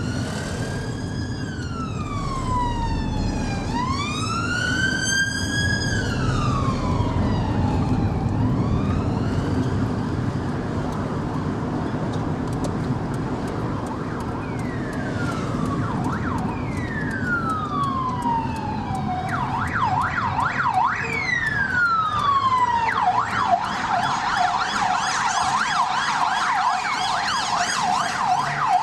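British police car sirens, heard from inside a car over the low rumble of the road and engine. The sirens sound a slow rising and falling wail at first, then switch to a rapid yelp of several sweeps a second in the last third.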